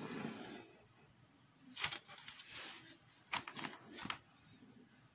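Pen and paper being handled on a desk: a brief rustle, then scattered sharp clicks and taps, a few about two seconds in and a tight run of them about three and a half seconds in.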